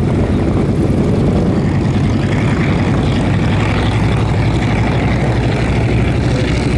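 Piper J-3 Cub's piston engine and propeller running steadily as the light plane flies low overhead, a continuous low drone.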